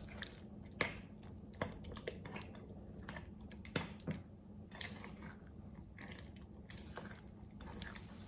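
Sticky glue-and-Vaseline slime being worked by hand or utensil, giving irregular wet, sticky clicks and squelches.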